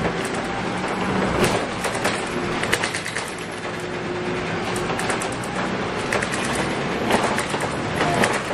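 Scania K280UB bus heard from inside while under way: its 9.3-litre five-cylinder diesel runs steadily, with frequent sharp rattles and clicks throughout.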